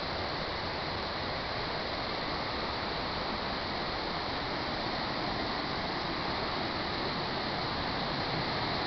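Steady rushing of a waterfall, growing slightly louder near the end.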